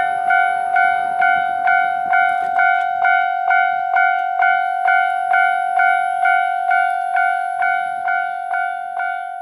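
Japanese level-crossing warning bell ringing: an electronic two-tone clang repeating evenly about twice a second, its strokes fading a little near the end.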